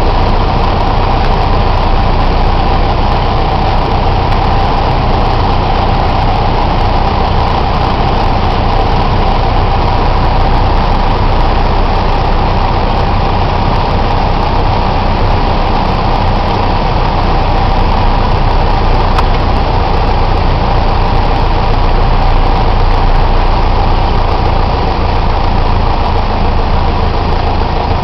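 Piper PA-28 Archer II's four-cylinder Lycoming engine and propeller droning steadily in the cockpit on final approach to landing.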